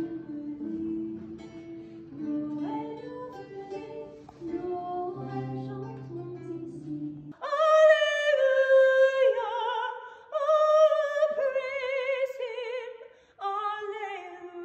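Background music with a plucked acoustic guitar, then, about seven seconds in, a woman singing unaccompanied from a book, holding long notes with a strong vibrato.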